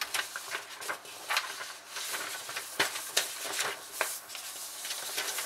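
Sheets of paper rustling and shuffling, with irregular small taps and knocks, as printed datasheet pages are leafed through.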